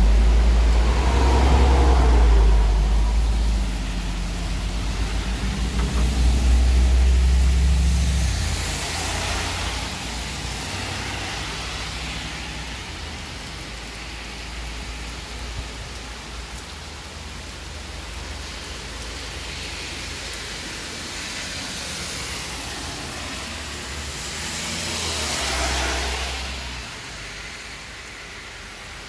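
A city bus engine rumbles as the bus pulls away over the first several seconds, then heavy rain hisses steadily on the wet road. A vehicle swishes past on the wet asphalt about three-quarters of the way through.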